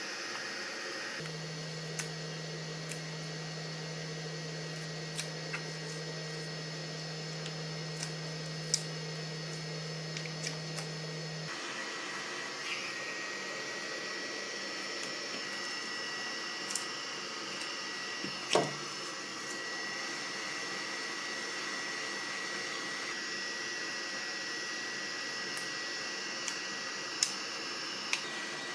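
Scattered sharp clicks and snaps of a phone battery's hard plastic casing being pried apart, over a steady background hiss and hum; the loudest snap comes a little past the middle.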